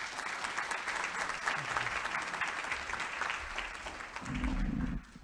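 Audience applauding: a dense patter of many hands clapping that stops about five seconds in.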